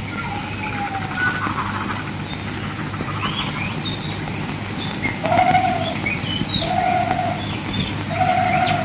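Birds chirping and twittering, with a lower note repeated three times at even spacing in the second half. A steady low hum runs underneath.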